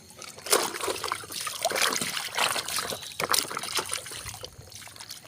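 Water trickling and splashing in short irregular bursts as a muddy toy truck is rinsed and scrubbed by hand.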